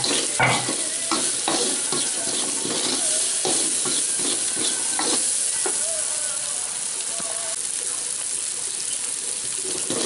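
Diced tempeh with shallots, chilli and garlic sizzling in hot oil in a wok, stirred with a wooden spatula that scrapes and knocks against the pan at irregular intervals, with a louder knock about half a second in.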